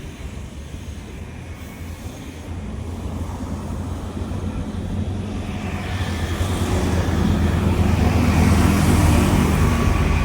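Jet airliner's engines growing steadily louder as the plane approaches. The deep rumble is joined by a rising hiss over the last few seconds.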